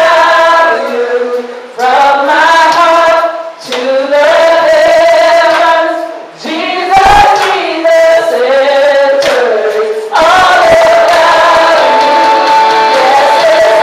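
A woman singing a worship song into a microphone in held phrases a couple of seconds long, with other voices singing along.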